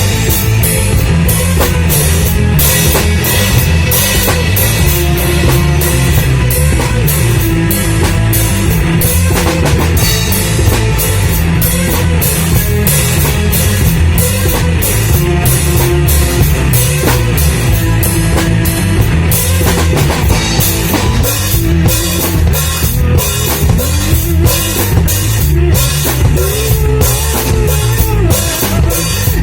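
Loud rock music with a fast, steady drum-kit beat, heavy bass and guitar.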